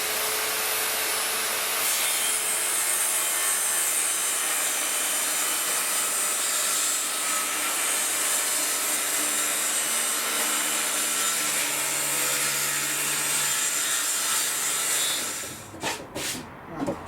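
Table saw running and cutting across a board, a steady loud noise with a high whine. The noise stops about fifteen seconds in, followed by a few knocks.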